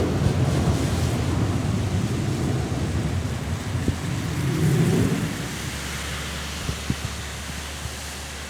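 Low rumble of a USAF F-16 Block 40 fighter's jet engine dying away. It swells briefly once more, then drops about five seconds in to a quieter steady wind noise with a few faint clicks.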